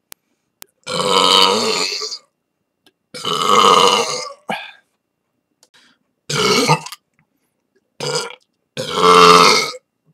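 A person burping loudly again and again: about five separate belches, some short and some drawn out to over a second, with silent gaps between them.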